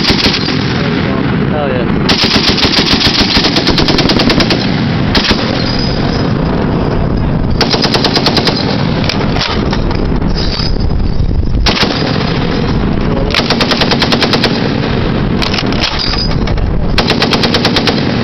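A .50 calibre heavy machine gun firing in short bursts of rapid shots, one burst every couple of seconds.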